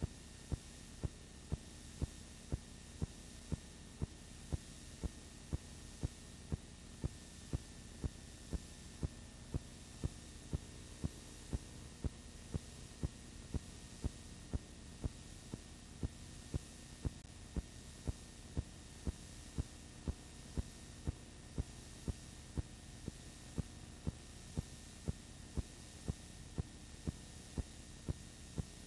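A steady low hum with a sharp click about twice a second, evenly spaced, like a mechanical tick or a surface defect repeating on playback.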